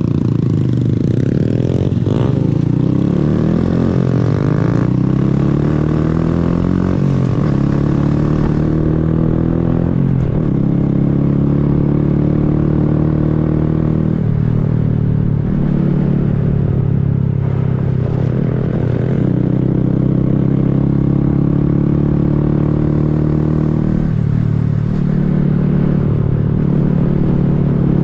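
Honda Grom's 125 cc single-cylinder engine pulling through the gears: the pitch climbs and drops back at each of about four upshifts in the first ten seconds. It then holds at a steady cruise, with a few brief dips where the throttle is eased.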